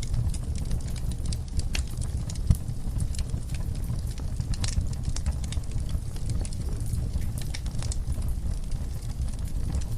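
Wood fire burning in a fireplace: a steady low rumble of flames with frequent small crackles and pops from the burning logs, one sharper pop about two and a half seconds in.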